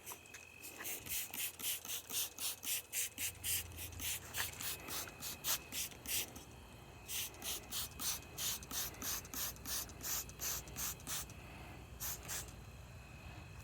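Trigger spray bottle of soapy water squirted in quick repeated pumps, about three a second, onto a tire to find air leaks. The run of squirts stops briefly about six seconds in, then goes on again.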